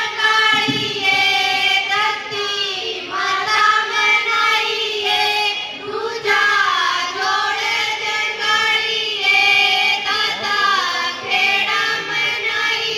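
Women singing a Haryanvi folk song into microphones, in long held, high notes that bend up and down, with short breaks between phrases.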